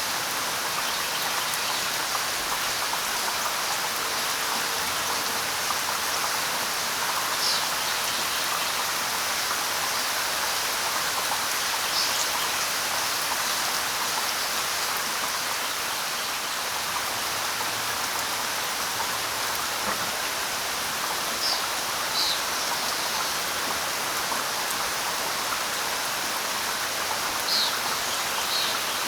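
Steady light rain, with a few brief high bird chirps scattered through.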